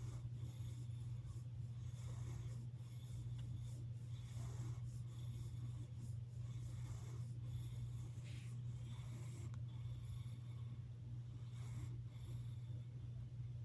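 Cat snoring, a faint breath about every two seconds, over a steady low hum.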